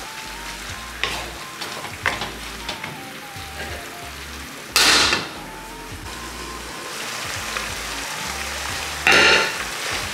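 Pork and vegetables sizzling in a hot frying pan, with a wooden spatula scraping and tapping as it stirs. Two loud, short bursts of noise break out, about five seconds in and again about nine seconds in, while the pan is covered with its lid in between.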